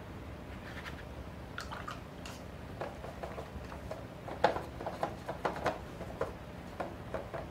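Wet watercolour brush at work: a scatter of small irregular wet taps, dabs and squelches, busiest a little after halfway, over a faint steady low hum.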